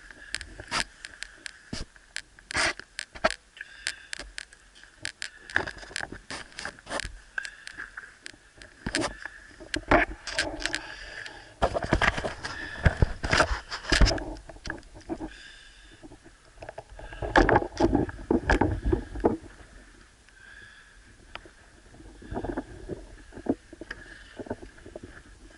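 Water noise picked up through an action camera's waterproof housing during an underwater spearfishing dive: many sharp clicks and knocks, with louder rushing bursts twice, around the middle and again a few seconds later.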